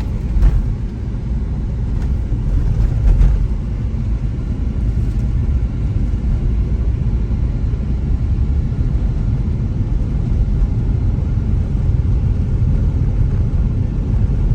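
Road and engine noise of a moving car heard from inside the cabin: a steady low rumble, with two brief thumps about half a second and three seconds in.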